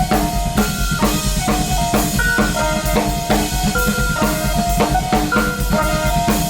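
Instrumental music: a drum kit plays a busy, steady groove of bass drum and snare hits, with short repeated melodic notes held over it.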